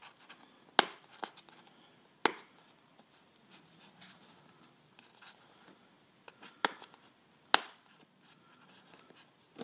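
Fingernails scratching and rubbing at the taped end flap of a small cardboard box, with several sharp clicks of the card as it is pressed and bent.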